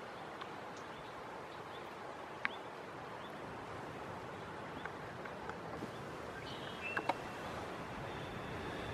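Steady outdoor wind noise, with a few brief high bird chirps, one about two and a half seconds in and a cluster about seven seconds in.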